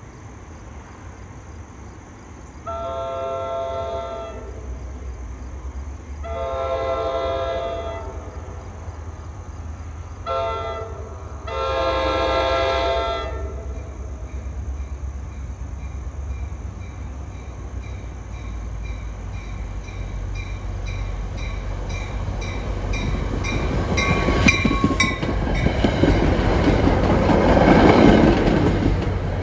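Commuter train horn sounding the grade-crossing signal, two long blasts, a short one and a long one, each a chord of several notes. Then the New Jersey Transit push-pull train comes on with a rising rumble and passes close by, wheels clicking over the rail joints, loudest near the end.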